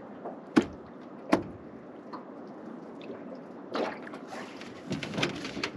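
Two sharp knocks about a second apart, then a few seconds of clattering and scraping near the end: fishing gear being handled and knocked against the hull of a small aluminium boat while packing up.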